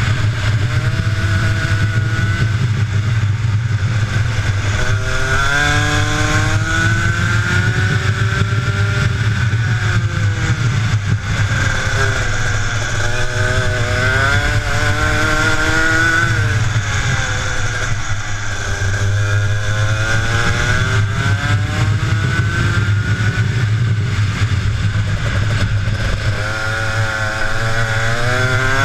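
Two-stroke kart engine heard onboard at race pace, the revs climbing in long rising whines and then dropping off, again and again.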